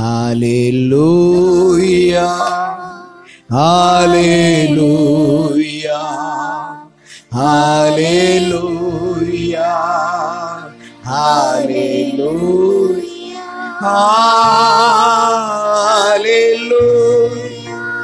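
Tamil Christian worship song: a voice singing long held phrases with a wavering vibrato, each a few seconds long with brief breaks between them, over steady sustained backing notes.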